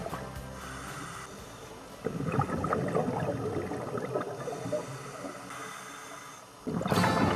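Scuba diver's regulator breathing and exhaled bubbles gurgling underwater, with a louder stretch of bubbling from about two seconds in. Background music fades out at the start and cuts back in near the end.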